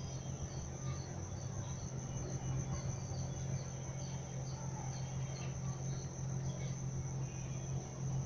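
Crickets trilling steadily in one high, unbroken note, with softer chirps repeating a few times a second, over a low steady hum.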